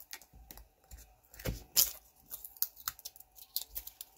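Plastic packaging being opened and handled: a run of short, sharp crinkles and rips, the loudest near the middle.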